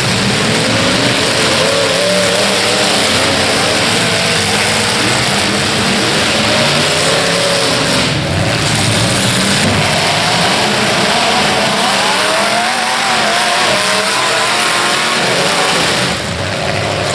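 Demolition derby car engines revving hard, their pitch rising and falling, over dense, steady noise.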